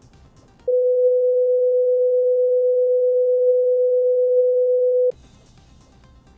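A steady, single-pitched test-card beep: a pure tone held for about four and a half seconds, starting and cutting off abruptly.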